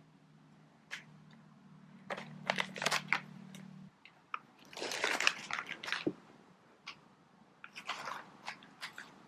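A cat crunching dry treats or biscuits, in irregular bursts of crunches. A low steady hum stops about four seconds in.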